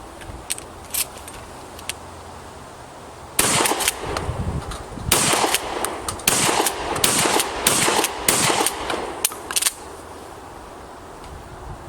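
A shotgun firing six shots in fairly quick succession over about six seconds, each a loud blast with a short echo. A few faint clicks come before the first shot.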